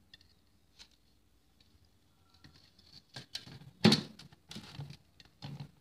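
Faint taps, then a run of sharp knocks and clatters from a stainless steel plate being handled and shifted on a wooden counter, the loudest knock about four seconds in.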